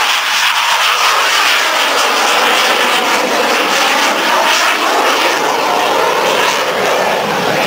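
Jet engine running loud and steady, a broad rushing noise with faint shifts in pitch.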